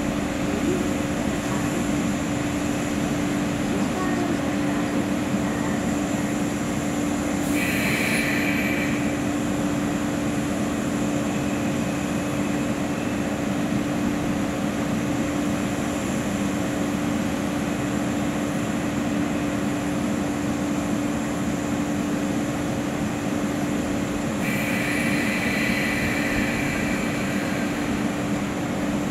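JNR 381 series express train standing at the platform, its onboard equipment giving a steady electrical hum. Two brief higher-pitched sounds come through, about eight seconds in and again near the end.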